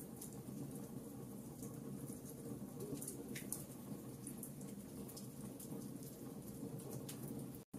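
Wood logs burning in a fireplace: a steady low rush of flame with scattered sharp crackles and pops. The sound cuts out for an instant near the end.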